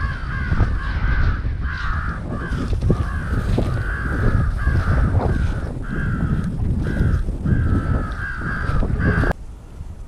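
Crows cawing in a rapid, continuous series of harsh caws, about two a second, over a steady low rumble. The calls cut off suddenly near the end.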